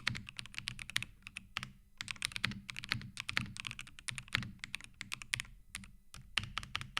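Fast typing on the ROG Strix Morph 96 Wireless mechanical keyboard, keystrokes in quick bursts with short pauses. The deep, muted 'thocky' sound comes from its factory sound-damping layers.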